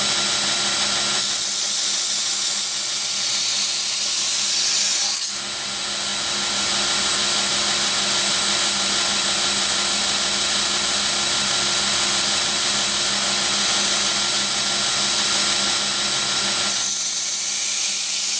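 Belt grinder running with a 60-grit sanding belt while a stainless knife blade is passed against it: a steady motor hum under the loud hiss of the abrasive cutting steel, with a brief break about five seconds in. This is the rough grind shaping the blade to a uniform edge bevel.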